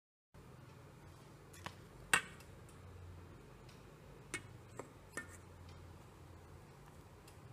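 A few light metallic taps and clicks, the loudest about two seconds in, as a tuna tin is picked up and handled beside a steel plate. A faint low hum runs underneath.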